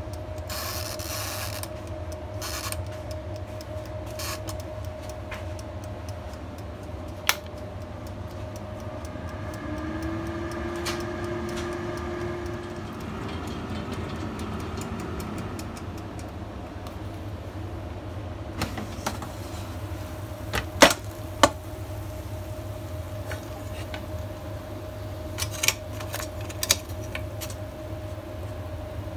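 Air fryer running with a steady fan hum and whine while its mechanical timer dial ratchets under the hand at the start. Sharp clicks and knocks come about two-thirds of the way in and again near the end as the basket is handled and pulled out.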